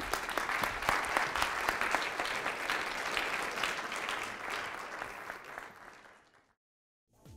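Audience applauding: dense clapping that fades out about six seconds in, followed by a brief dead silence and the start of an electronic jingle at the very end.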